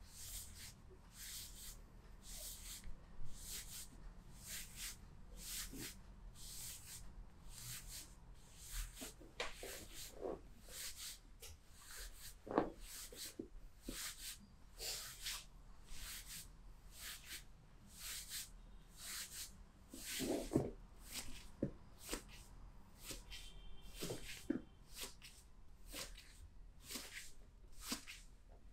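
Hands rubbing rhythmically over skin in massage strokes, about one and a half strokes a second, with a few short squeaks in between.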